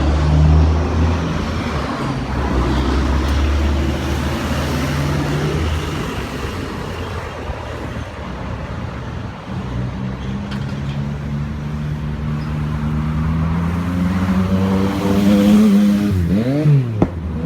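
A motor vehicle engine running, its pitch climbing slowly through the second half as it speeds up. Near the end a pitched sound bends up and down twice.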